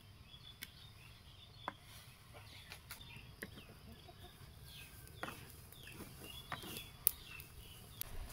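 Wooden spatula knocking and scraping against a clay kadai as leafy greens are stirred, in scattered faint clicks. Birds call and chirp in the background through most of it.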